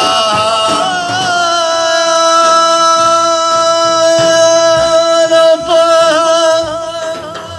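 Male Arabic religious praise singing (madih): the singer holds one long note, with small wavers in pitch near the start and about six seconds in, fading near the end.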